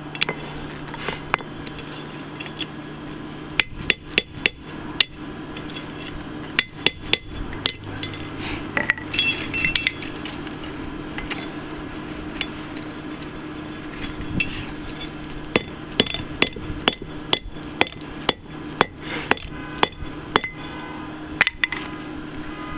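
Hand hammer striking a punch driven into a hot railroad spike on a steel anvil, widening the hole for a bottle opener: sharp ringing metal blows in irregular bursts, fewer of them about halfway through.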